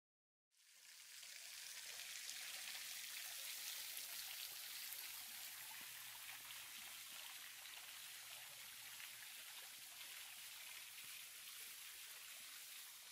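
Steady splash and patter of falling water, fading in within the first second or two and holding evenly.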